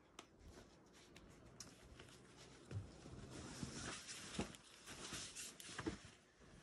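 Faint scuffing and rustling with a few soft knocks, from a boulderer's hands and climbing shoes on the rock and a spotter shifting a crash pad below.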